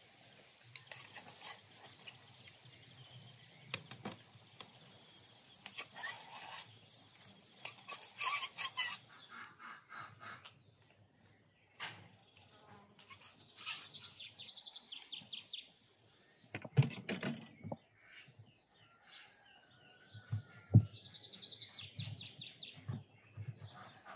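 Birds chirping, mixed with scattered clinks and knocks of knives, plates and dishes being handled at an outdoor table. The sharpest knocks come about two-thirds of the way through.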